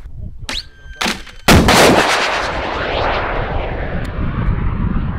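Anti-tank guided missile fired from a tripod-mounted tube launcher: a sudden loud launch blast about a second and a half in, then the missile's motor rushing away downrange, the noise slowly dulling and fading. A couple of sharp clicks come just before the launch.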